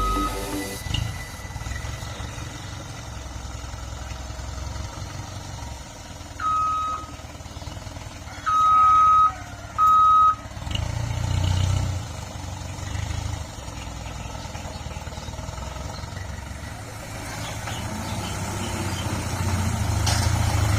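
Dump truck engine running, with three short high beeps at one steady pitch around the middle, the second the longest and loudest. The engine gets louder near the end.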